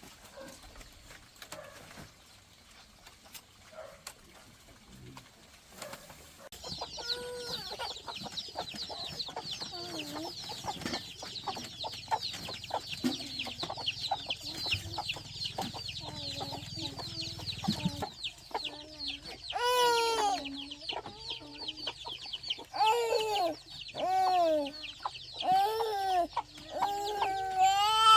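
Chickens calling: a dense stream of high, rapid peeping starts about six seconds in, and repeated clucking calls join it over the last third.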